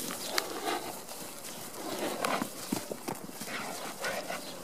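Hoofbeats of several horses trotting and cantering over grass close by: irregular dull knocks.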